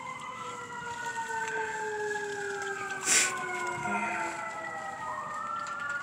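Emergency vehicle siren wailing, its pitch rising slowly over about two seconds, falling away, then rising again near the end, a sign of fire crews heading to a nearby blaze. A short burst of noise cuts in about three seconds in.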